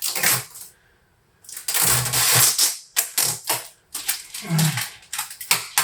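Packing material being handled and pulled off a newly unboxed 3D printer: a run of sharp clicks and knocks, with a loud rustle lasting about a second, about two seconds in.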